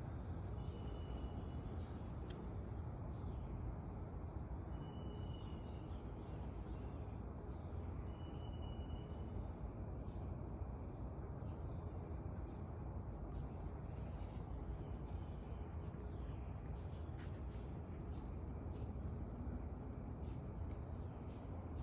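Steady chorus of crickets over a low rumble. Three short, high, level notes sound at about one, five and eight and a half seconds in.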